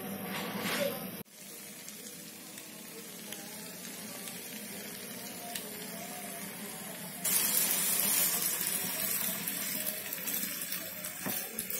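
Shredded chicken frying in chilli paste in a pan, a steady sizzle that steps up louder about seven seconds in. Background music is heard for the first second or so, then cuts off.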